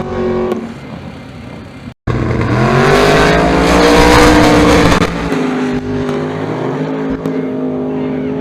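No-prep drag race car engines at full throttle. After a brief break near two seconds, the engines rise in pitch and grow very loud, loudest around four seconds, then drop to a steadier, lower drone.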